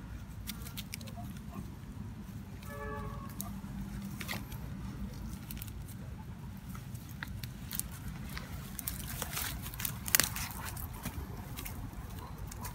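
Dry stems and leaves rustling and snapping in sharp clicks as hands work through weeds, over a low steady rumble. A short pitched call sounds about three seconds in.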